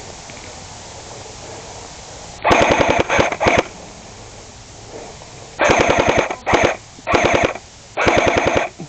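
Airsoft gun firing full-auto in short bursts, a rapid even rattle of shots: three bursts about two and a half seconds in, then four more from about five and a half seconds.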